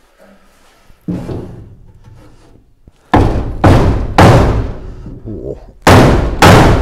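Hammer blows struck upward against the underside of a steel recovery truck body through a block of wood, knocking out a dent. One blow about a second in, then five heavy strikes from about three seconds in, each ringing out briefly in the metal.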